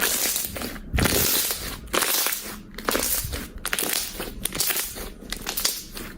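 Slime being squeezed and pressed by hand, giving a dense, continuous crackling and popping.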